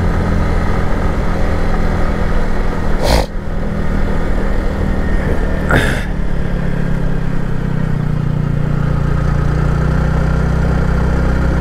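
Sport motorcycle's engine running at a steady note while riding in third gear, with wind noise. Two short, sharp noises cut in, about three and six seconds in.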